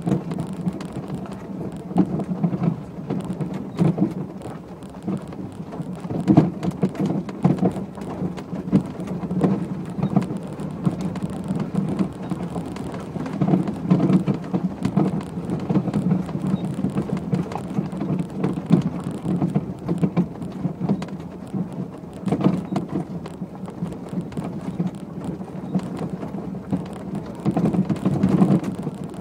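Heard from inside the cabin of a 1992 Renault 9 converted to electric drive, driving up a rough dirt track: a steady low rumble with constant knocks and rattles, the noisy suspension and body jolting over the bumps.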